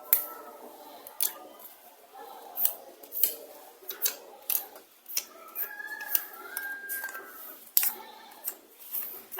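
Irregular small sharp clicks and taps of hand tools on the thin plastic layers of a keypad phone's LCD display as it is prised apart layer by layer.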